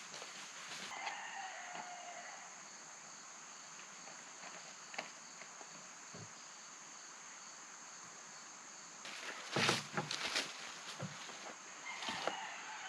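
Steady high-pitched drone of insects in the background. A few short clicks and knocks come about ten seconds in and again near the end.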